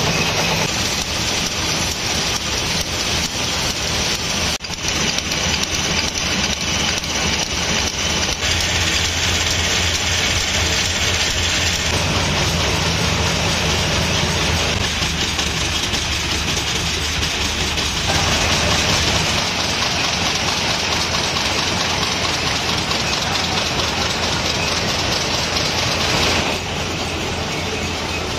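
Wire-fed screw-making machines running: a dense, continuous mechanical clatter of rapid strokes whose character changes abruptly several times.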